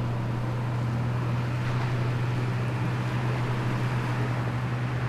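Steady low engine drone with a noisy rush above it.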